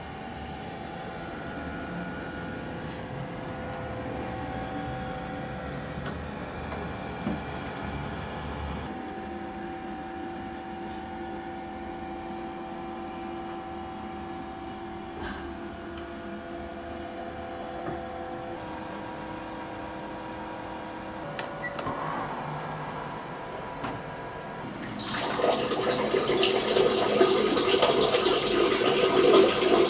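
Water running loudly and steadily in a small tiled restroom, starting suddenly about 25 seconds in. Before it there is only a quieter steady background of held tones.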